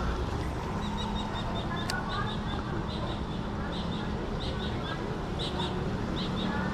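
A small bird chirping repeatedly in short high notes, often in pairs, about once or twice a second, over a steady low background hum. A single sharp click sounds about two seconds in.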